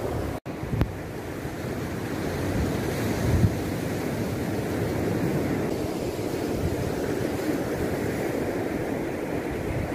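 Ocean surf washing up a sandy beach, with wind buffeting the microphone in low thumps. The sound drops out for an instant about half a second in.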